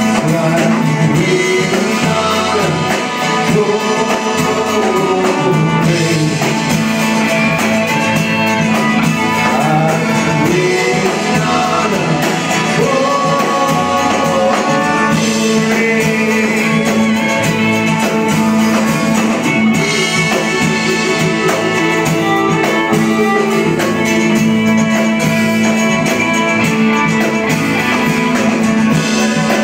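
Live band playing a song: strummed acoustic guitar, electric guitars, bowed cello and drums, with a sung vocal line. Steady and full, with no pauses.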